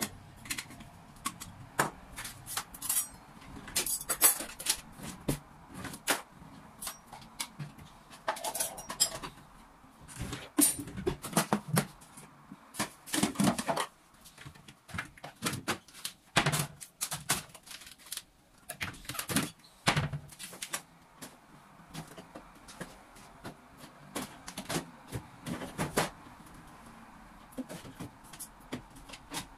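Irregular clicks, knocks and clatter of household objects being handled and set down during housework, in short busy clusters with brief lulls.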